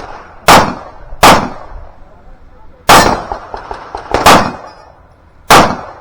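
Five loud pistol shots fired at an uneven pace, some under a second apart and some a second and a half apart, each with a short echo.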